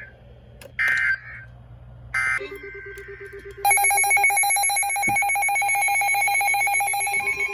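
Emergency Alert System data tones from a weather-radio broadcast: two short screeching digital bursts about a second and a half apart, the end-of-message signal closing the marine warning. A low steady tone follows, and about halfway in a loud buzzing electronic alert tone starts and holds steady.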